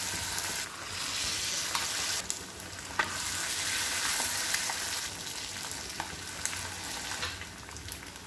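Batter-coated boiled egg pieces deep-frying in hot oil: a steady sizzle with scattered pops and crackles. More battered pieces are slipped into the oil from a spoon.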